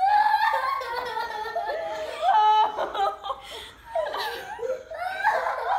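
Children laughing and crying out with excitement, with one high held voice about two and a half seconds in.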